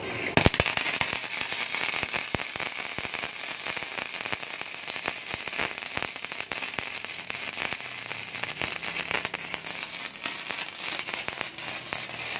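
Gasless (flux-core) MIG welding from a mini MIG/stick welder: the arc crackles and sputters steadily, with a few sharper pops in the first second.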